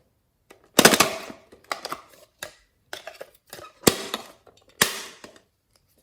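Slime being pressed and worked by hand, giving about six sharp pops, each with a short crackle as trapped air bursts.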